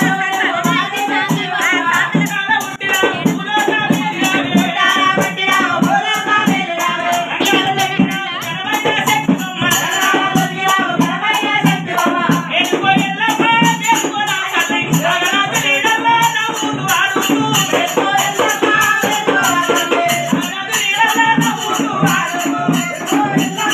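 Oggu-style Telangana devotional folk music: a male lead singer chanting a song to the goddess Yellamma over drums and a fast, even metallic rattle-like percussion rhythm.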